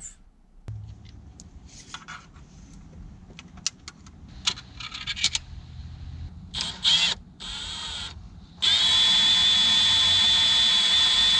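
Clicks and knocks of tool handling, two short blips of a power drill's motor, then near the end the drill runs steadily at speed with a high whine, drilling a hole in the boat's hull.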